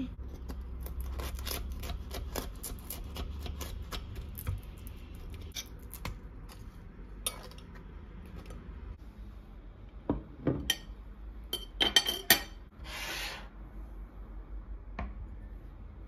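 Knife cutting through a crisp toasted tortilla wrap on a ceramic plate: many small crackling clicks and scrapes, then a cluster of sharp clinks of knife and fork against the plate about eleven to twelve seconds in.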